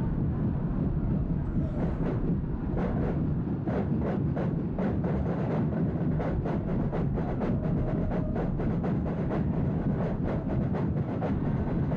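Football stadium crowd's rumbling roar, joined about two seconds in by rhythmic beating of supporters' chanting, about three beats a second.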